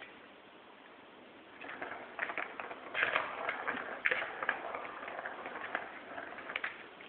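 Kittens scampering and playing: a dense flurry of light claw clicks and scratchy rustling that starts about a second and a half in and dies down near the end.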